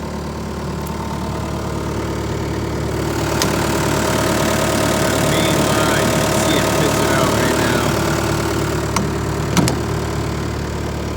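Hitachi EX120-2 excavator's diesel engine running steadily, getting louder over the first few seconds. A short sharp knock comes near the end.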